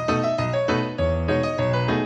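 Background music: piano notes over a sustained bass.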